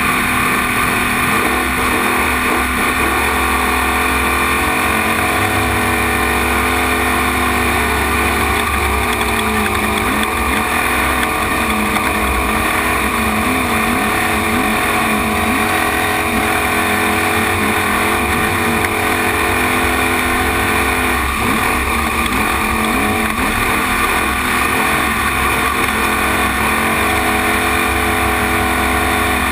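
Desert trophy truck engine heard from an on-board camera, running hard and revving up and down, with the revving busiest about ten seconds in and again past twenty seconds.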